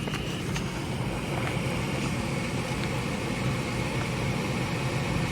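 Gas furnace's circulating blower running steadily after a reset, a constant hum of motor and moving air.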